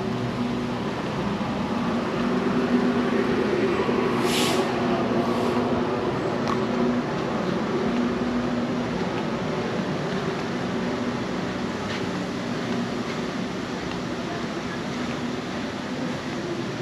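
A steady mechanical hum with a constant low droning pitch, like a motor running, and a brief high hiss about four seconds in.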